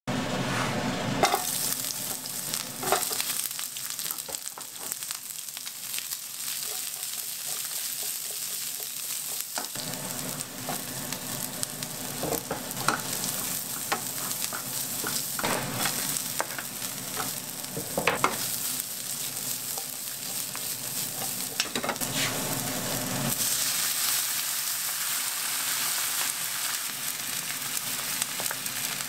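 Sliced onion, carrot and garlic frying in oil in a pan with a steady sizzle, stirred with a wooden spatula that scrapes and knocks against the pan now and then. About three-quarters of the way through the sizzle grows louder.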